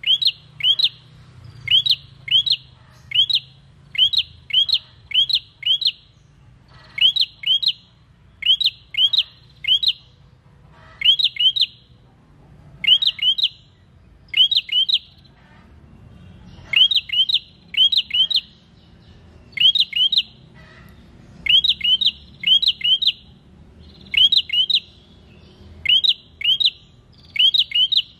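A prenjak sings a rapid, repeated call of sharp, high chirps in quick clusters of two to four. The clusters come about once a second, with a few pauses of a second or so.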